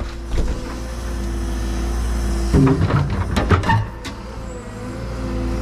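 Tracked excavator with its engine running steadily, and a run of knocks and scrapes between about two and a half and four seconds in as the bucket and hydraulic thumb grab a boulder at the old septic tank they are crushing.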